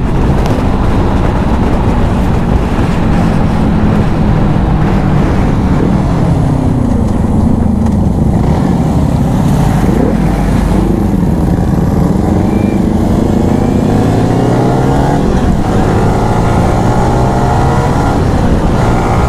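Motorcycle engine running on the road under heavy wind rush on the microphone. The engine note sags in the middle, then climbs steadily over the last few seconds as the bike speeds up.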